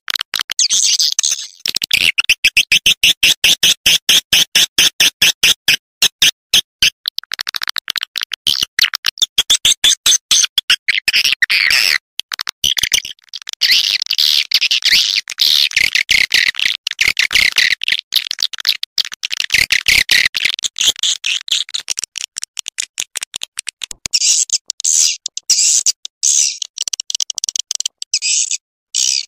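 Swiftlet call recording: fast, chattering runs of short, high chirps and clicks that repeat almost without pause, with a brief break partway through and a higher-pitched stretch near the end. This is the kind of swiftlet calling sound played to lure swiftlets into nesting houses.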